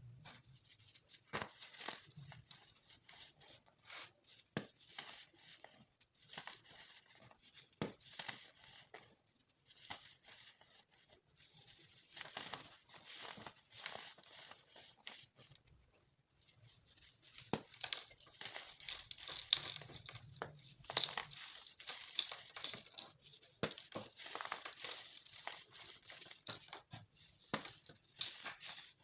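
Dyed baking soda chunks being crushed: a steady run of short, dry crackles that gets denser and louder a little past halfway.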